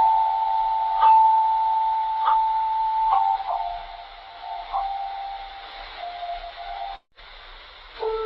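Made-up alarm signal: a long steady electronic tone that drops to a lower pitch about three seconds in, over a steady radio-like hiss with a faint tick roughly every second. It cuts out briefly near the end, and a new, lower tone starts.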